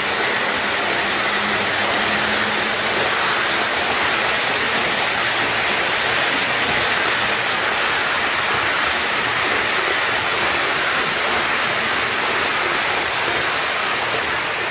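HO-scale model container wagons rolling past on the track: a steady, even rushing rattle of many small wheels on the rails.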